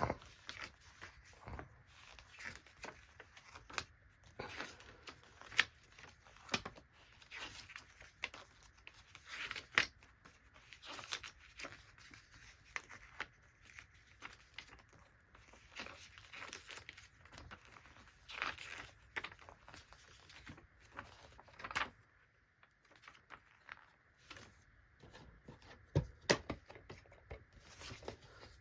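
Paper rustling and crinkling as a DVD booklet and paper inserts are handled and paged through, with scattered short clicks and a sharper knock near the end.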